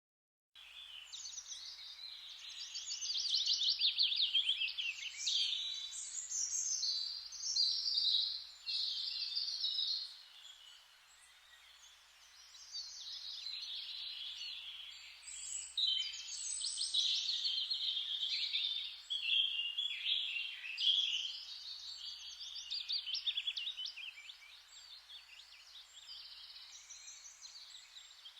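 Forest ambience with several songbirds singing at once, overlapping rapid trills and chirps over a faint hiss. The sound drops out for about half a second at the start.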